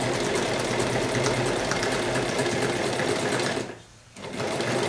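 Keller-51 sewing machine running, stitching through thin vinyl-coated fabric with a steady hum and rapid needle ticking. It stops briefly about three and a half seconds in and starts again.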